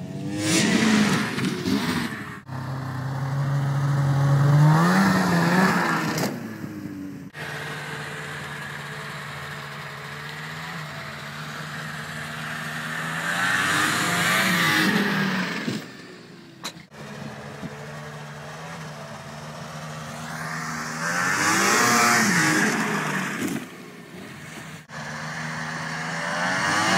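Ski-Doo snowmobiles' 600 cc two-stroke engines revving hard as the sleds run at and go over a jump, across several short clips. In each pass the engine pitch climbs and then falls away as the sled goes by, loudest around 1, 5, 14, 22 and 27 seconds.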